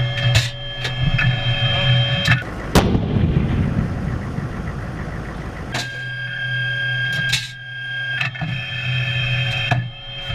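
M1A2 Abrams tank's 120 mm main gun firing, heard from inside the turret: one sharp blast about three seconds in, followed by a few seconds of rumbling noise. Around it there is a steady electrical hum and whine inside the tank, with a number of sharp metallic clicks and clanks.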